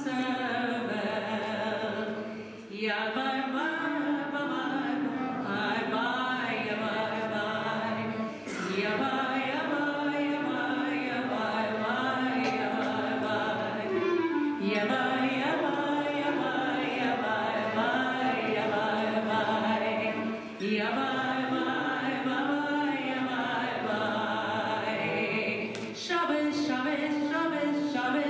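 A female cantor singing a Yiddish song into a microphone, in phrases of about six seconds with brief breaths between them.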